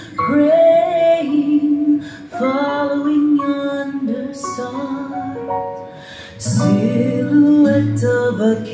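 Music: the opening of a Christmas song about the three kings, with held melody notes that grow fuller, with deep bass notes, about six and a half seconds in.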